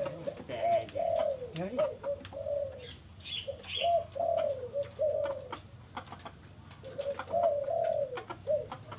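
Spotted doves cooing: phrase after phrase of low coos in runs a couple of seconds apart, with light clicks and taps in between.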